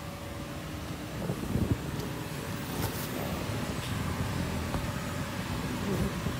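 Steady low rumble of an inflatable bounce house's electric air blower, with a few soft thumps about a second and a half in and again near the end.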